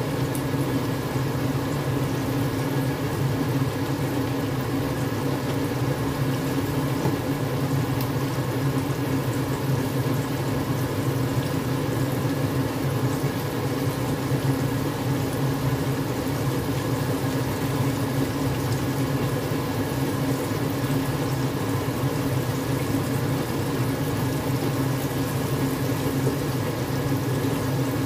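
Cornstarch-coated chicken pieces sizzling steadily as they fry in oil in a wok, over a steady low hum.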